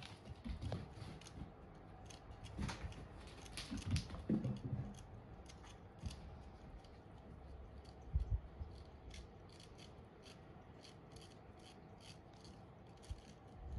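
Cats running and pouncing on a floor mat: irregular soft thumps of paws landing, the loudest a little past eight seconds in, over a run of quick, light ticks and scuffs.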